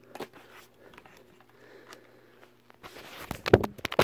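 Light handling rustles, then the phone that is filming is dropped, tumbling and knocking with a cluster of loud sharp knocks about three and a half seconds in.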